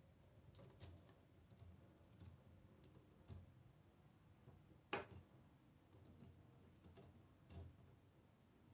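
Faint, scattered clicks and taps of plastic K'nex rods, connectors and gears being handled and snapped together, with one sharper click about five seconds in.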